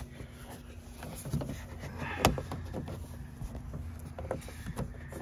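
Scattered clicks and knocks of hands handling plastic parts and cables inside a car door, with one sharper click about two seconds in, over a steady low hum.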